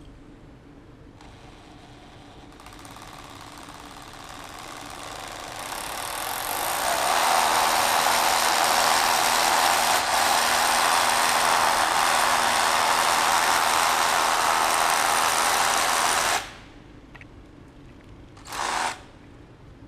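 Cordless rotary hammer drill boring an anchor bolt hole into a concrete wall. It starts faint and builds over several seconds to a loud, steady run, then cuts off suddenly, with one short burst of the drill near the end.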